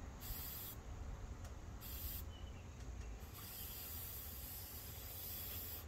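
Aerosol can of clear Flex Seal liquid rubber spraying, faint and distant: two short hissing bursts, then a longer one starting about three seconds in.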